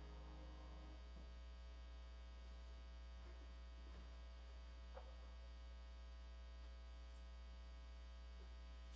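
Near silence with a steady low electrical mains hum; the last piano chord dies away in about the first second, and a couple of faint clicks come near the middle.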